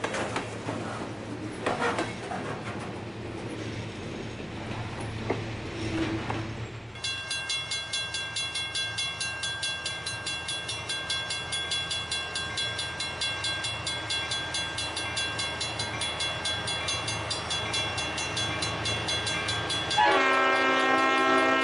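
Freight cars rolling past with wheels clicking over the rail joints. Then an EMD SW1200 switcher locomotive approaches with its bell ringing about twice a second. About a second and a half before the end, its air horn sounds loudly, several tones at once, held steady.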